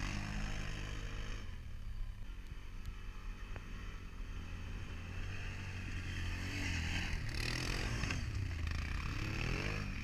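Quad-bike engines, a Can-Am 1000 and an Access 650, revving up and down as the ATVs climb a dirt trail. The engines are louder near the start and again toward the end, with a quieter stretch in the middle.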